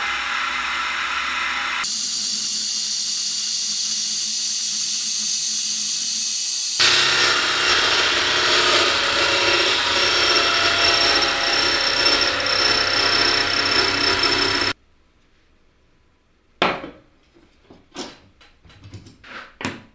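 Power tool running steadily and loudly, in three stretches that change abruptly, then cutting off suddenly about 15 s in. A few separate knocks and clicks follow near the end.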